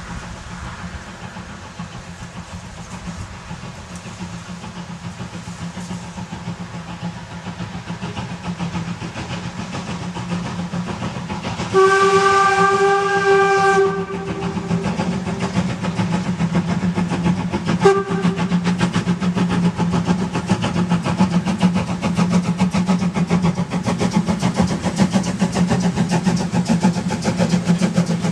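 Narrow-gauge steam locomotive approaching with a goods train, its rhythmic exhaust beats growing steadily louder. About twelve seconds in it sounds its steam whistle in one blast of about two seconds, and gives a short toot some four seconds later.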